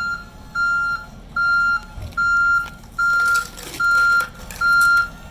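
Truck's reversing alarm beeping at a steady, even pace, a little over one high beep a second, as the truck backs up.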